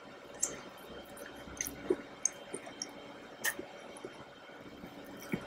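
Close-miked chewing of soft chocolate mousse cake: wet mouth smacks and small clicks, scattered irregularly.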